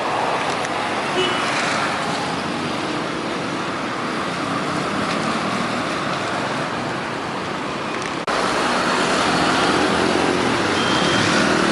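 Steady street traffic noise of passing cars, suddenly louder about eight seconds in.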